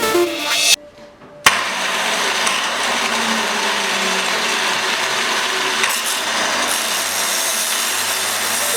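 After music fades out and a short pause, a click about a second and a half in is followed by an angle grinder steadily grinding a drill bit's tip, an even hissing noise.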